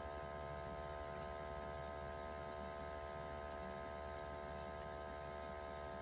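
Steady electrical hum with a whine in it, from running boiler-room equipment while a gas boiler fires, unchanging throughout.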